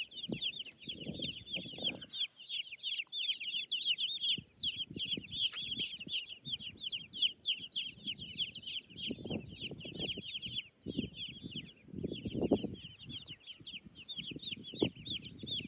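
A flock of baby chicks and turkey poults peeping continuously: many short, high chirps overlapping with no break. Low rustling and bumping patches come and go underneath.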